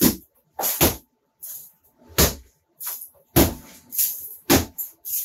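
Sharp demolition impacts as a ceiling is being torn out, about ten hard strikes and crashes in an irregular rhythm of roughly two a second.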